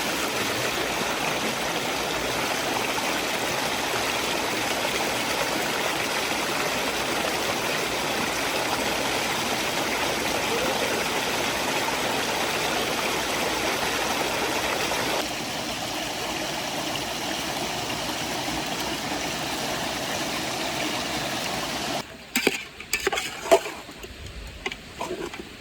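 Steady, loud rushing hiss. It drops a little about two-thirds of the way through, then cuts off suddenly near the end, leaving scattered light clicks and knocks.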